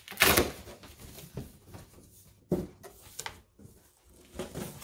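A tall cardboard shipping box being opened by hand. It starts with a loud tearing rip, then the top flaps are pulled open with cardboard scraping, a sharp knock about two and a half seconds in, and rustling near the end.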